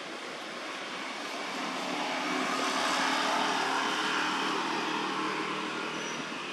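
A vehicle passing: a steady engine hum and rushing noise that swells to its loudest about three seconds in, then fades.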